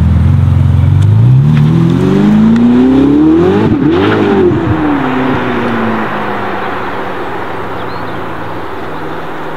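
Ferrari SF90 Stradale's twin-turbo V8 accelerating hard, its revs climbing steadily through a gear. About four seconds in, a gearshift drops the pitch, and the engine note then fades as the car pulls away.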